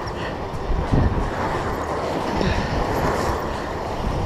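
Steady rushing noise of surf breaking on jetty rocks, mixed with wind buffeting the microphone, with low rumbling surges about a second in and near the end.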